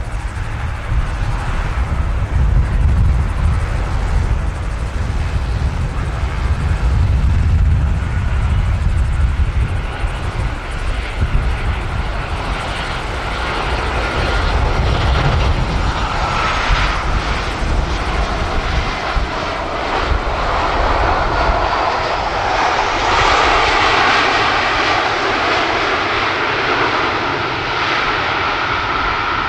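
Jet noise from a Boeing C-40C's twin CFM56-7 turbofans as it comes in to land, touches down and rolls out. A deep rumble early on gives way, after touchdown, to a louder rush with a steady whine, which is loudest during the landing roll.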